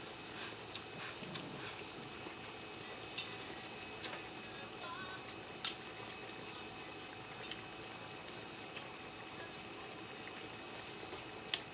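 Faint steady hiss with scattered light clicks, like utensils touching dishes during a meal.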